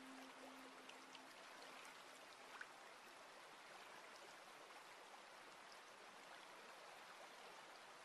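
Faint, steady trickle of a shallow stream running over stones, with scattered tiny drips. A held low musical note dies away in the first couple of seconds.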